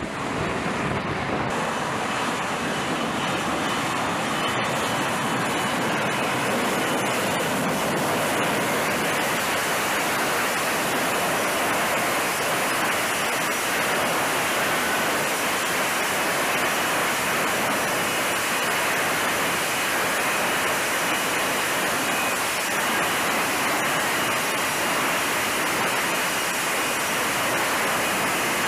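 F-35B jet engine running with a steady, unbroken roar, a faint turbine whine riding on it.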